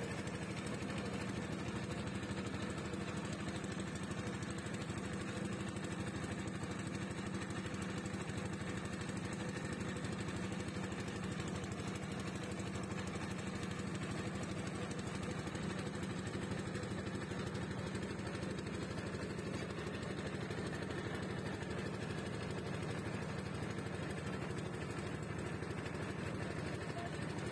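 A boat's engine running steadily at an even speed, heard from on board, with a constant low hum.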